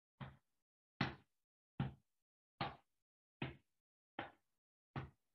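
Crossed hands patting the chest in a butterfly hug: slow, firm, evenly spaced thumps, seven of them, a little faster than one a second.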